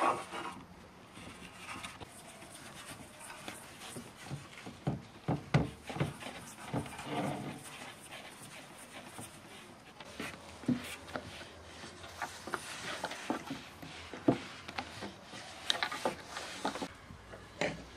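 Irregular light knocks, taps and rustles of hands and a thin wooden rolling pin working sheets of baklava dough over a large aluminium pan and a wooden board, with a few louder knocks a third of the way in.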